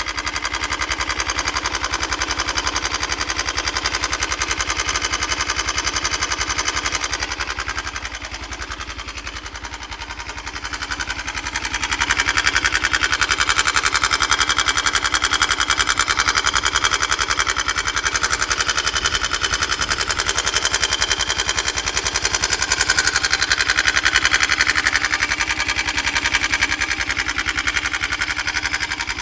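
169FMM single-cylinder four-stroke motorcycle engine running with a knock left after a partial seizure of the piston. It slows and quietens for a few seconds about a quarter of the way in, then picks up again about 12 seconds in and runs faster and louder.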